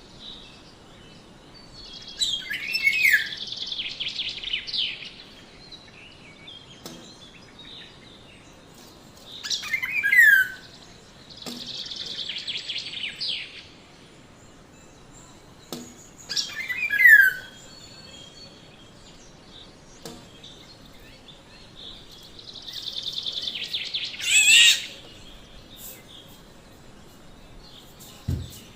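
Black-naped oriole calling in bouts several seconds apart: short sharply falling notes mixed with harsh, buzzy rasping calls.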